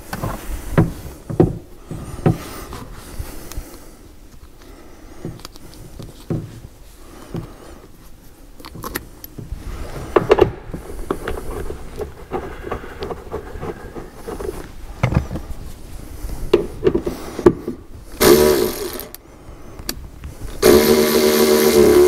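Plastic interior trim and seat belt hardware clicking and knocking as they are handled and pressed into place. Near the end a handheld power tool runs briefly, then again for longer, driving in a fastener.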